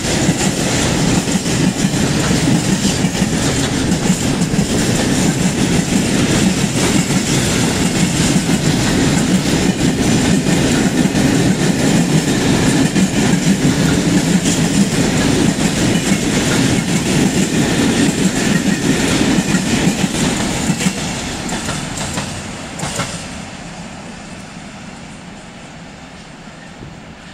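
Freight train of open-top gondola wagons rolling past: a steady rumble and clatter of wheels on the rails. It fades away after about 21 seconds, once the last wagon has passed.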